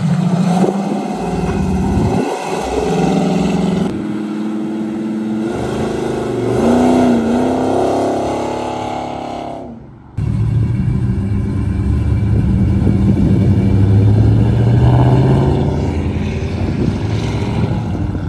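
Cars driving past one after another, starting with a classic Chevrolet Camaro pulling onto the road with its engine accelerating and revving up and down. The sound breaks off sharply about ten seconds in and resumes with a steady, lower engine drone as more cars go by.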